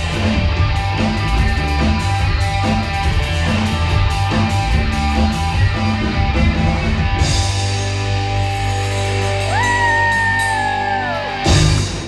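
A live rock band of electric guitar, electric bass and drums playing loud, driving music. Toward the end a held high note slides down, and a loud final hit closes the song.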